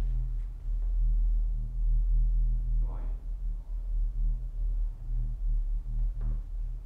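A low, steady drone of several layered tones that swells gently in level, typical of an ambient film-score drone. A soft, brief sound about three seconds in.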